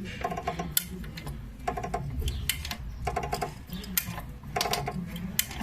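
Renault Mégane suspension clicking as the wheel is worked up and down: short bursts of rapid clicks, about one burst every second and a half, with single sharp clicks between. The noise persists even with a new stabilizer link fitted.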